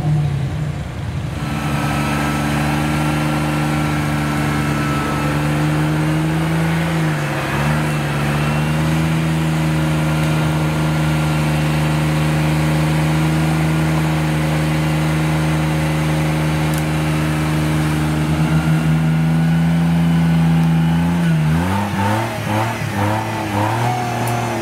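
Off-road 4x4's engine held at high, steady revs for about twenty seconds, dipping briefly about seven seconds in, then revved up and down in the last few seconds.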